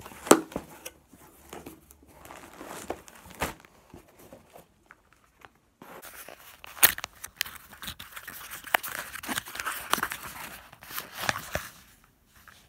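A mailed package being opened by hand: packaging tearing and crinkling, with irregular sharp clicks and rustles. There is a brief lull partway through, and it is busiest in the second half.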